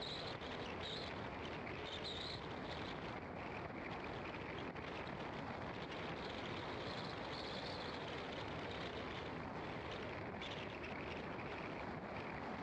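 Car driving along a paved road: steady road and wind noise, with a higher hiss that swells and fades now and then.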